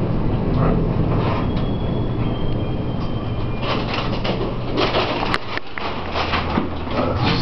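Elevator cab travelling between floors: a steady low mechanical hum and rumble, with one sharp click about five seconds in.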